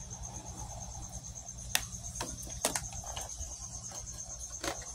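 Crickets chirping in a steady, high, evenly pulsed trill, with a few sharp plastic clicks from a clear plastic tub being handled, the loudest about two seconds in and near the end.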